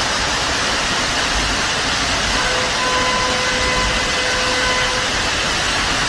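Floodwater rushing down a street, a loud steady roar of moving water. From a little after two seconds in, a steady pitched tone like a horn is held for about two and a half seconds over it.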